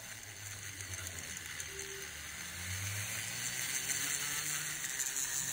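Small wire wheel in a flex-shaft rotary tool brushing over a bare, paint-stripped die-cast metal car body: a steady scratchy hiss over a faint motor hum, cleaning off leftover paint and stripper residue before priming.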